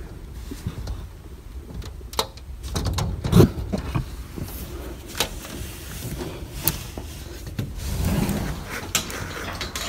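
Handling noise from a phone held in the hand: rustling, with scattered clicks and knocks and one louder thump about three and a half seconds in.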